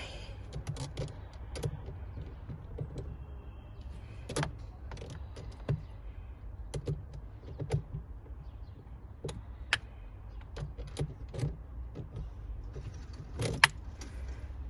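Ratchet socket wrench working a battery terminal clamp nut loose: scattered metallic clicks and clinks, with one louder clink near the end, over a low steady rumble.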